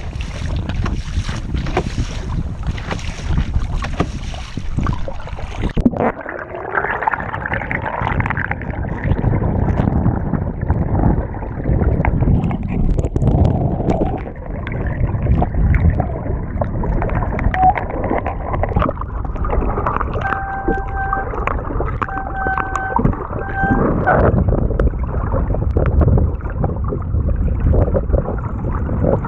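Water splashing and gurgling against a small foam sailboat, with wind buffeting a GoPro microphone. About six seconds in, the sound turns muffled. A few short steady tones sound about two-thirds of the way through.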